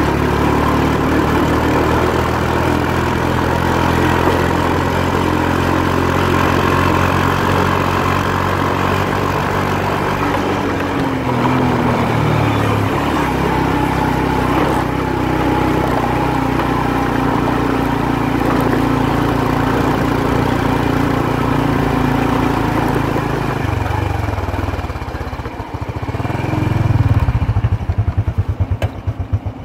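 Motorbike engine running on the move, its pitch shifting a little around ten to thirteen seconds in. Near the end it slows and settles into an even putter, as at a low idle.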